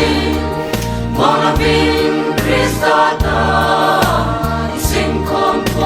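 Background gospel music: a choir singing held notes over a bass accompaniment.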